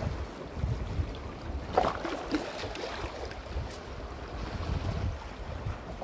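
Sea waves washing and splashing among shoreline rocks, with wind buffeting the microphone; a louder splash comes just under two seconds in.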